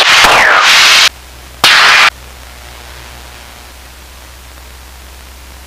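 Static hiss on a light aircraft's headset intercom audio: loud hiss that cuts off suddenly about a second in, a second half-second burst just before two seconds, then only a faint steady low hum.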